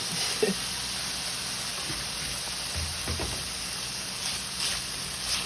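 Bell peppers, green onions, garlic and thyme sizzling steadily in olive oil in a pan as they sauté to soften, with a couple of faint taps.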